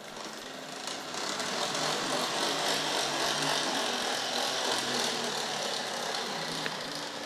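Tri-ang R.555 Blue Pullman power car's motor bogie running along the track under power: a steady buzzing whir with the rattle of its knurled driving wheels on the rails, building up over the first second as power is fed from the handset.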